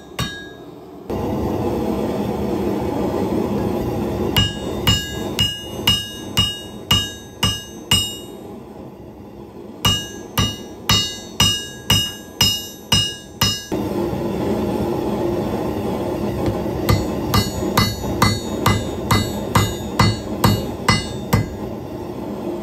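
Hand hammer forging a red-hot railroad spike into a knife blade on a piece of steel railroad rail used as an anvil. The blows come in runs of about two a second, each with a bright metallic ring from the rail. A steady rushing noise runs underneath for most of the time and drops out for several seconds in the middle.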